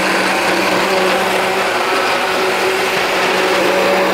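Countertop blender running steadily at one speed, its motor holding a constant pitch as it purées herbs, onion and garlic in olive oil into a coarse marinade.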